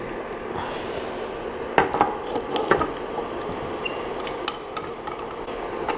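Hard parts being handled: a cluster of knocks and clicks about two seconds in, then a few lighter ticks, over a steady background hum.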